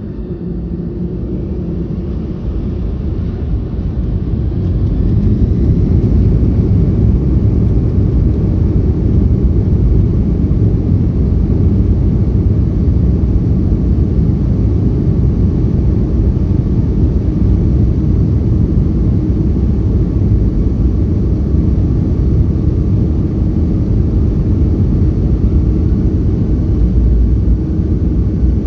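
Boeing 757-200's jet engines heard from inside the passenger cabin, the noise building over the first five or six seconds to a loud, steady, deep rumble at takeoff power.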